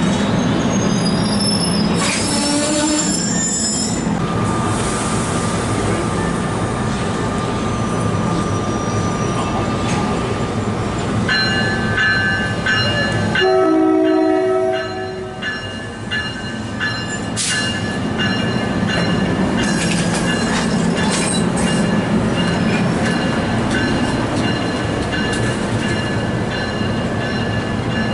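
Train rolling through a station with a steady rumble. From about eleven seconds in, high, multi-toned steel wheel squeal joins it, and a short horn blast sounds about halfway through.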